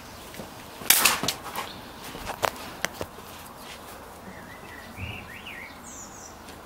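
Spring-powered airsoft guns firing in a skirmish: a cluster of sharp clacks about a second in, then a few more single shots over the next two seconds.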